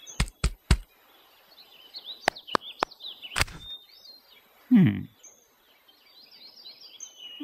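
Forest soundscape of birds chirping in quick, short rising and falling calls, broken by sharp clicks or taps: three in quick succession at the start and a few more between two and three and a half seconds in. A short low falling sound comes about two thirds of the way through and is among the loudest moments.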